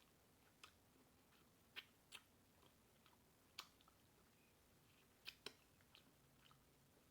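Faint, sporadic wet mouth clicks and smacks of a person chewing food: about seven short clicks, unevenly spaced.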